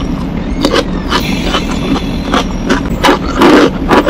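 Close-miked chewing of crunchy food: irregular crunches and mouth clicks, loudest about three and a half seconds in, over a steady low hum.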